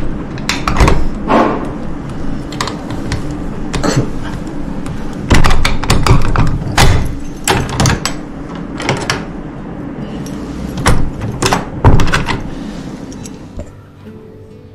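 Large old-fashioned key being worked in the lock of a wooden door: repeated sharp clicks, rattles and knocks from key, lock and handle, stopping near the end.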